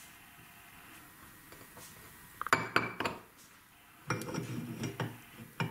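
Quiet at first, then two short spells of clinking and clattering from the steel parts of a meat grinder head as hands work sticky goo out past its cutting blade and auger. The first spell starts a little before halfway through, the second about a second later.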